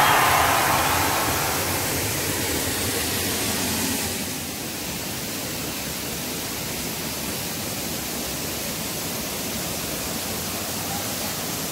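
Steady rushing of a waterfall and river, a little louder in the first few seconds, then even.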